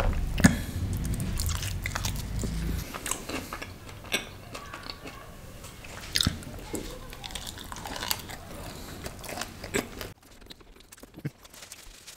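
Close-miked chewing of a mouthful of pizza, wet smacking with sharp mouth clicks. It dies down near the end.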